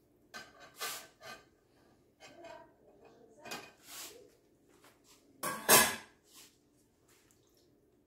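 Marinade being poured from a small metal bowl over raw chickens in a cast-iron pot and rubbed in by hand: irregular wet handling and dribbling sounds with the odd knock of the bowl against the pot, the loudest about five and a half seconds in.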